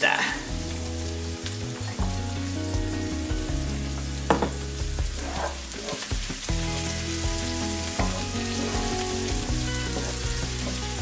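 Kale leaves and flowers sizzling in butter and olive oil in a cast iron skillet as they are stirred with a wooden spoon, with a single knock about four seconds in. Soft background music with held chords changing every second or two plays along.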